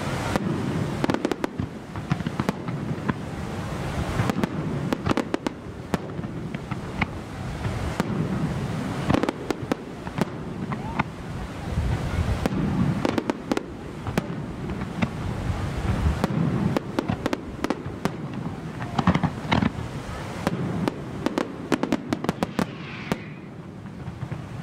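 Aerial fireworks shells bursting overhead in a continuous barrage of bangs and crackling. A rapid flurry of sharp reports comes shortly before the end.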